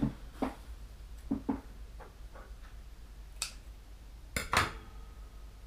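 Light knocks and clicks of small objects being handled on a hard tabletop, the loudest pair about four and a half seconds in, over a steady low hum.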